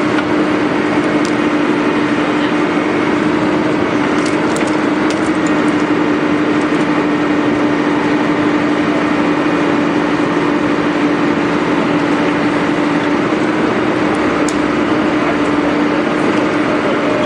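Excavator engine and hydraulics running steadily, driving a hydraulic pile breaker, with a steady low hum. A few sharp cracks come about four to five seconds in and again near the end.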